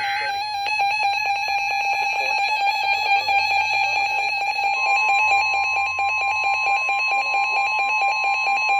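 NOAA Weather Radio emergency alert tones: a buzzy electronic alert tone sounds throughout. About five seconds in, the steady 1050 Hz warning alarm tone joins it, marking the start of a new warning.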